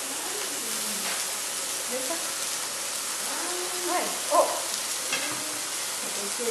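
Meat sizzling steadily on the ridged plate of an electric Korean barbecue grill, around a steaming pot of soup. Faint voices come through briefly about four seconds in.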